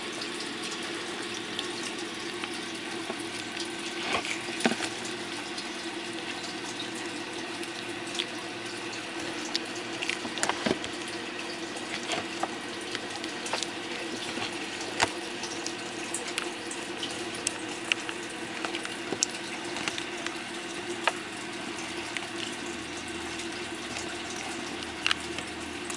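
Steady sound of running water, with scattered sharp clicks from box turtles biting pellets and knocking against a plastic feeding plate.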